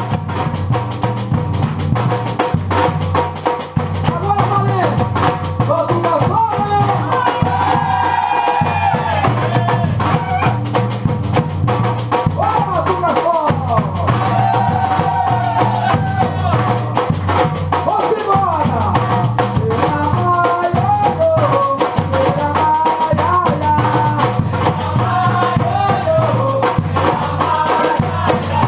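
Drum-led percussion music with a voice singing over it: dense, steady drum strokes over a repeating low bass pattern, with the singing line wavering in pitch throughout.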